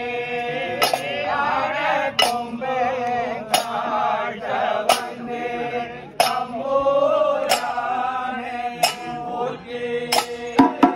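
A group of men chanting a ritual song together, with a sharp percussive strike about every second and a half keeping the beat.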